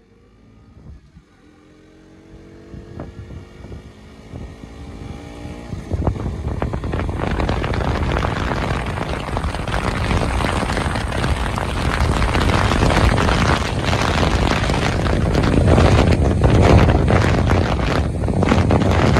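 KTM RC motorcycle engine rising slowly in pitch as the bike gets under way. From about six seconds in, a loud rush of riding wind over the microphone all but buries it.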